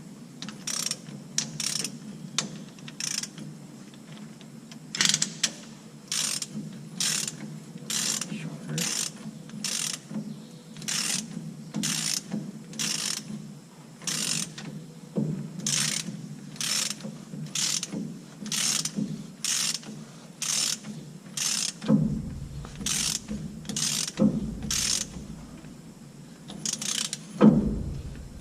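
Hand ratchet wrench tightening a bolt on a truck's rear differential, its pawl clicking on each back-swing, about two strokes a second. The bolt is being run in snug before final torquing. A few heavier metal knocks come near the end.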